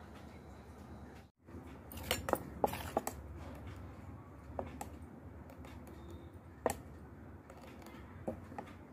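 Thick multigrain dosa batter being stirred in a steel bowl, with sharp clinks against the metal, several close together soon after the start and single ones later.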